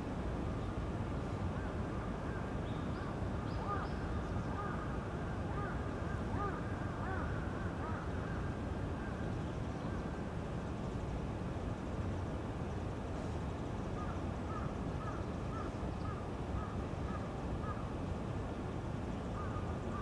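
Steady low rumble of distant city traffic, with faint bird calls over it. In the second half comes a run of short, evenly repeated calls.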